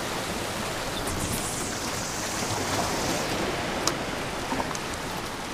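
Steady rush of ocean surf washing against a rocky shoreline, with a hiss that swells about a second in and fades again, and a couple of faint clicks.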